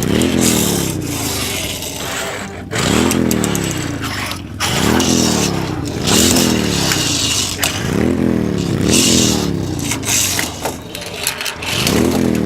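Toy race cars running down a plastic ramp one after another: a scraping rattle of small wheels, each run topped by a revving engine sound that rises and falls in pitch, repeated every second or two.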